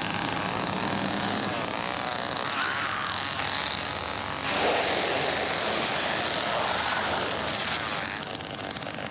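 Two-stroke chainsaw engine running loud, revving up and down, with a surge about four and a half seconds in.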